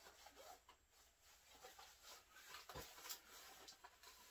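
Near silence: faint rubbing of clothing as a pocket knife is drawn from the waistband, with a couple of soft knocks about three seconds in.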